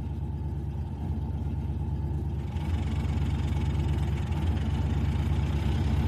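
A vehicle engine idling steadily, growing a little louder and fuller about two and a half seconds in.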